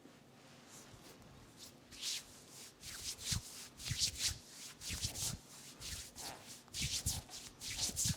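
Hands rubbing and working over a person's scalp and hair during a head massage. After about two seconds of quiet, a run of quick, irregular rubbing strokes begins, a few with a soft thud.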